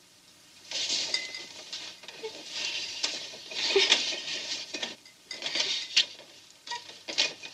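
Rustling of clothing and scuffling as a man and woman kiss and grapple at close quarters, starting under a second in, in uneven surges with a few sharp clicks.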